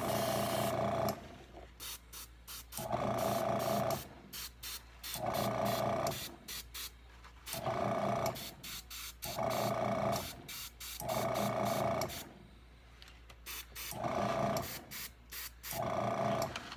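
Gravity-feed airbrush spraying paint in repeated bursts of about a second, each a steady hiss with a whistle-like tone, with short pauses and small ticks between bursts.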